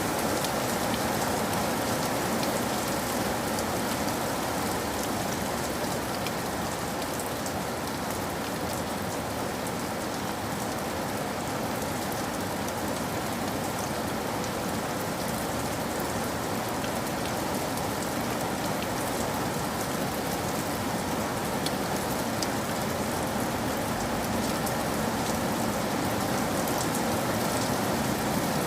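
Steady rainfall: an even, unbroken hiss of rain with scattered small drop ticks.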